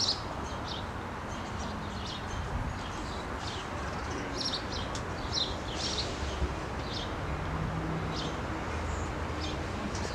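Small birds chirping in short, scattered calls over a steady low rumble that grows a little louder near the end.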